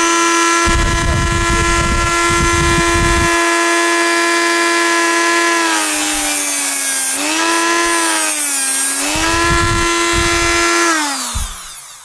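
Dremel rotary multitool with a cut-off wheel whining steadily at speed setting 8, cutting through a copper car cable clamped in a vise. Twice the pitch sags under load with a harsh grinding hiss, and near the end the whine falls away as the wheel spins down.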